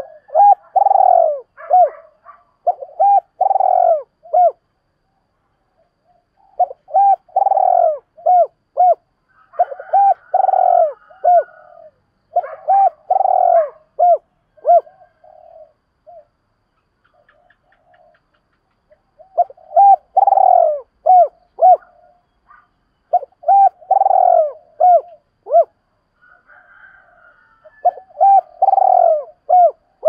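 Spotted dove cooing over and over, in bouts of several low coos with short gaps between them and a longer pause about halfway through. This is a decoy dove's rapid calling, used to draw in and excite wild doves.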